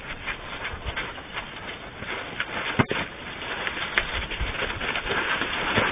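Herd of African savanna elephants moving off on dry, dusty ground: scuffing, shuffling footsteps with a few sharper knocks, growing louder toward the end.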